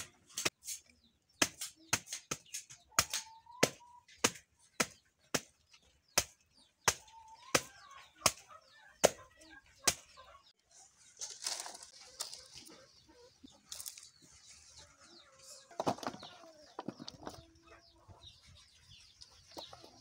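Machete chopping the soft inner core of a banana stem into chunks, sharp chops about two a second for the first half. After that the chopping stops and chickens cluck amid rustling and flapping.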